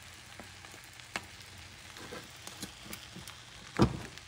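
Omelette eggs sizzling softly in a nonstick frying pan over medium heat, with a few light spatula ticks and one louder knock of the spatula against the pan near the end.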